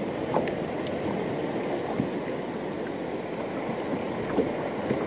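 Sea water washing and lapping around a small boat with wind on the microphone, a steady wash broken by a few light clicks.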